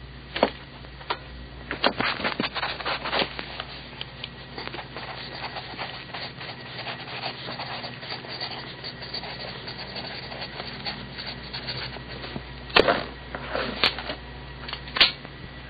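Newer Dixon Ticonderoga wooden pencil scratching across paper in a run of short writing strokes, with a few louder knocks near the end, over a low steady hum.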